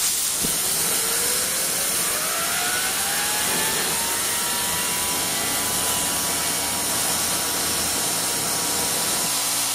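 Homemade tin-can jet engine running: a loud rushing hiss, with a whine from its spinning blades that rises in pitch over the first four or five seconds and then holds steady as the rotor reaches speed.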